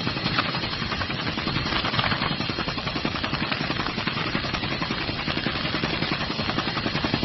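Helicopter rotor and engine noise as heard from inside the aircraft: a steady, dense rushing noise with a fast, even chopping.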